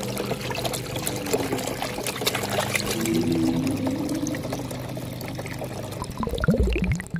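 Water pouring and splashing into a small water-filled basin: a steady trickling rush with bubbling. Near the end comes a short swooping effect with a low thud.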